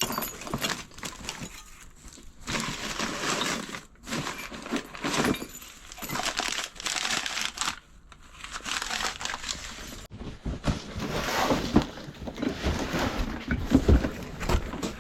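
Wrapping material crinkling and rustling as wrapped items are unwrapped and handled, in irregular bursts of varying loudness.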